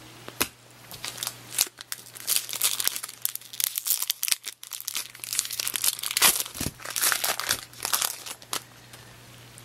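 Foil wrapper of a 2002 Bowman baseball card pack crinkling and tearing as it is ripped open by hand, in a rapid run of crackles that dies down near the end.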